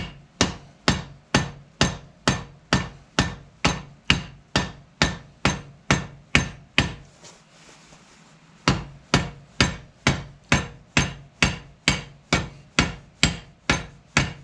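Hammer blows on a bolt used as a rivet set, peening over the rivets that hold a new lining to a David Brown tractor brake shoe clamped in a vise: metal-on-metal strikes at a steady pace of a little over two a second. The blows stop for about a second and a half around the middle, then carry on at the same pace.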